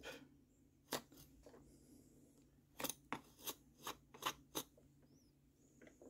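Soldering iron's T12 spatula tip being cleaned: a faint single click about a second in, then six short scratchy clicks in quick succession from about three seconds in.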